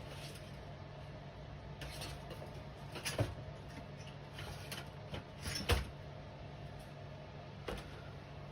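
A few short clicks and knocks of tools and wire being handled on an electronics workbench, the two sharpest about three and five and a half seconds in, over a low steady hum.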